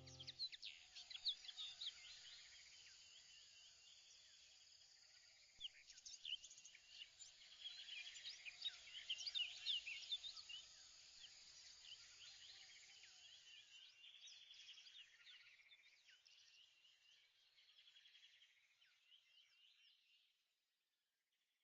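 Faint high chirping and twittering of birds, many short quick calls overlapping, thickest mid-way and fading out about a second before the end.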